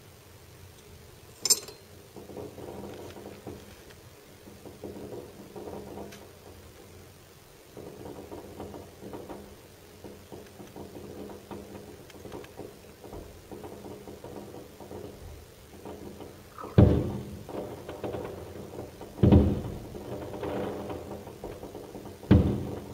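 Aerial firework shells bursting: a single sharp crack about a second and a half in, then three loud booms in the last six seconds, each dying away quickly.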